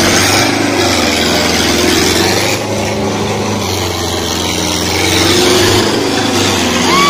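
Sonalika DI 750 tractor's diesel engine running at high revs under heavy load, a steady labouring drone whose pitch wavers slightly.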